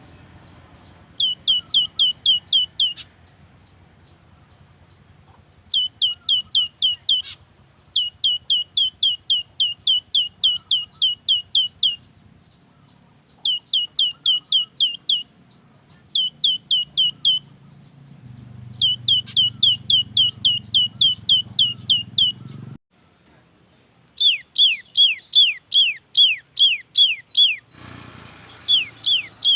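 Cinereous tit (gelatik batu) singing: bouts of rapid, repeated down-sliding whistled notes, about four or five a second, each bout lasting one to four seconds with short pauses between. Near the end, after a brief break, comes a slower series of longer notes sweeping down from high to low, over a faint low hum.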